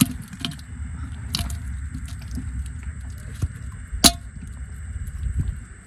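Freshly netted small silvery fish flapping in a heap: scattered wet slaps and clicks, the sharpest about four seconds in, over a low steady rumble.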